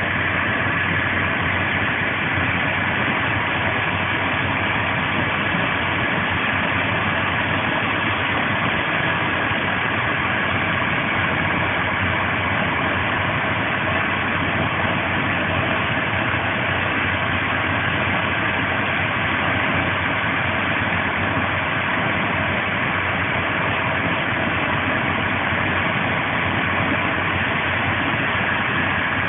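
Steady rolling and wind noise of a CP Intercidades Corail passenger coach running at high speed, heard from on board, with a faint steady whine over an even rush.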